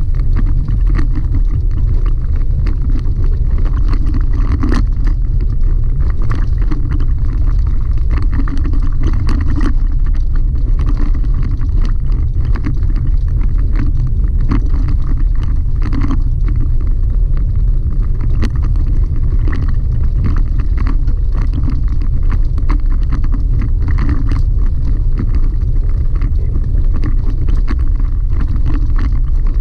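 Chevy Colorado ZR2 pickup driving a gravel dirt track, heard from inside the cab: a loud, steady low rumble of road and drivetrain noise, with scattered sharp ticks and knocks of stones and cab rattles.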